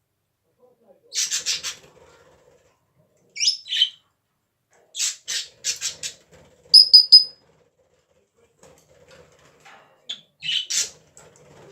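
Pet parrot coughing: clusters of short, raspy cough-like bursts, with brief high chirps and a sharp high squeak between them.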